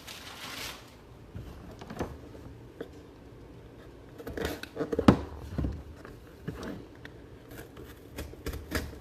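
Hands opening and handling a trading card box and its packaging: rustling, light plastic and cardboard clicks and taps, with a sharp knock about five seconds in.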